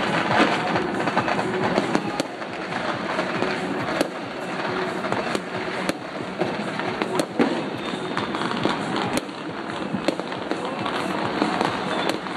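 Fireworks and firecrackers going off across a city: a constant crackle of many bangs, with louder single reports standing out every second or two.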